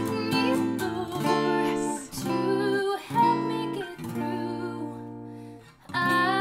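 Acoustic guitar strumming chords, a new chord about every second, fading briefly near the end before the next chord comes in.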